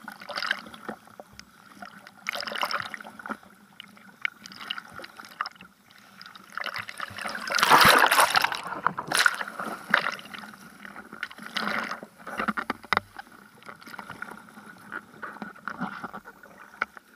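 Ocean water splashing and sloshing around a camera mounted on a bodyboard, in irregular bursts, with the loudest rush of water about eight seconds in.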